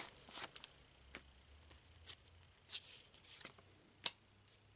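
Trading cards being handled and flipped through one at a time: faint, scattered soft clicks and rustles of card stock, several over a few seconds, the sharpest about four seconds in.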